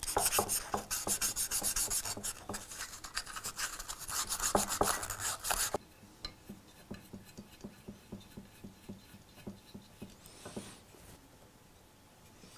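Rapid, rhythmic rasping strokes of a hand tool, about four a second, stopping abruptly about six seconds in; faint soft ticks follow.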